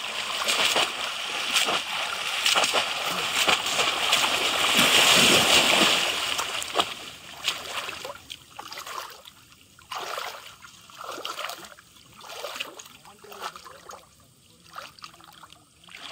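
Water splashing and sloshing as bamboo polo fish traps are plunged down into shallow muddy water and the fishers wade through it. The splashing is continuous and heavy for the first several seconds, then breaks into separate splashes about once a second.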